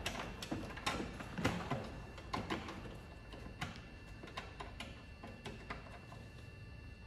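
Hand-handling noise from working a wire cable under a flexible rubber trim piece in a car's front compartment: scattered light clicks, knocks and rustles at an irregular pace, a few sharper ones in the first couple of seconds.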